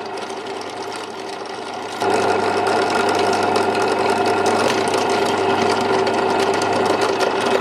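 Drill press motor running steadily, then louder and rougher from about two seconds in as the bit bites into the lid and mills out a coin slot.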